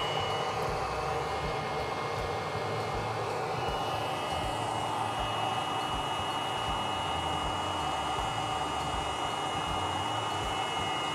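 Webasto diesel water heater starting up slowly, its blower running with a steady rushing whir. A steady high whine joins in about three and a half seconds in.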